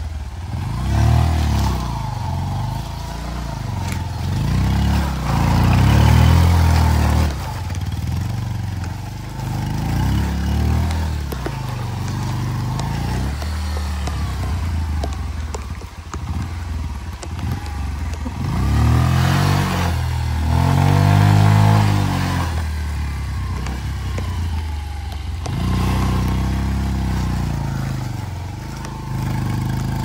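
Motorcycle engine revving in repeated surges, its pitch rising and falling again and again as the throttle is worked on a slippery, muddy trail.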